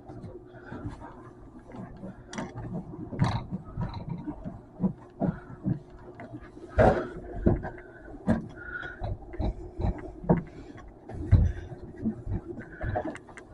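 A cloth rubbing against a microwave's surfaces, with irregular knocks and bumps against the microwave as it is handled, over a faint steady hum.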